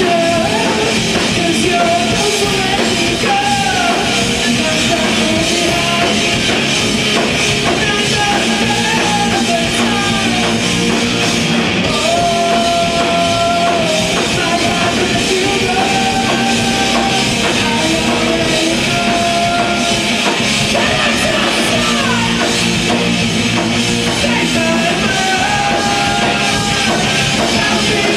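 A progressive rock/metal band playing live and loud: electric guitars, bass guitar and drum kit, with held melodic lines gliding over the steady wall of sound.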